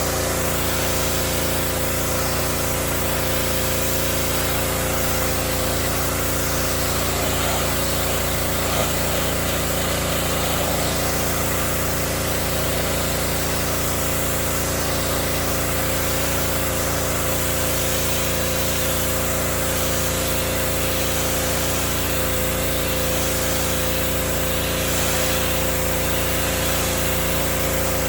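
Gasoline pressure washer running steadily under load: its small engine holds a constant pitch, with the hiss of the high-pressure water jet spraying on wooden deck boards.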